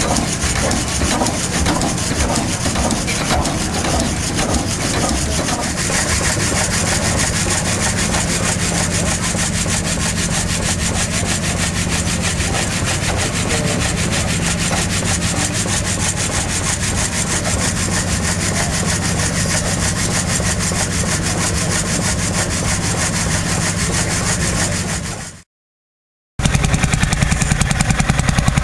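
Vintage stationary engine with large flywheels running steadily with a fast, even beat. It drives a long flat belt to a belt-driven saw. Near the end the sound cuts out and an old tractor engine is heard running instead.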